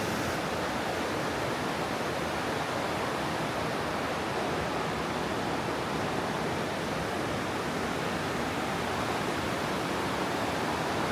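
Waterfall rushing steadily: a constant, even sound of falling water.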